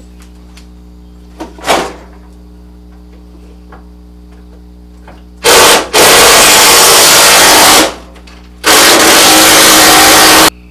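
A power tool run loud in two long pulls of about two seconds each, with a brief stop early in the first, backing out the bolts that hold the radiator support; a short blip of it comes about two seconds in.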